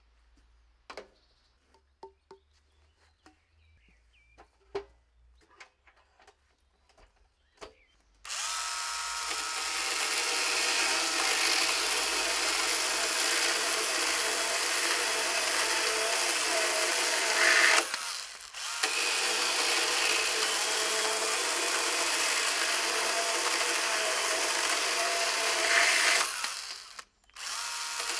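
Makita DUC101 18V cordless pruning saw, a small battery chainsaw, cutting through a log. Light clicks and knocks for the first several seconds, then the saw starts about eight seconds in and runs steadily, stopping briefly twice.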